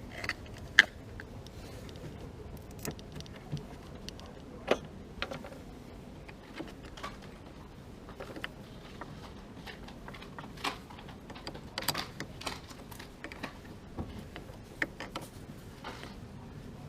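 Irregular light clicks and metallic clinks of tools and metal parts being handled, one sharp clink about a second in the loudest, over a low steady background hum; no engine is running.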